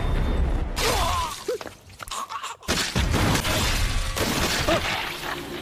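Loud crashing, shattering sound effects in two long noisy surges, with a short drop a little past two seconds in.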